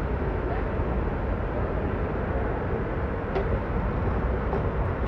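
Airport people-mover train running, a steady low rumble heard from inside the car as it rolls along a station platform.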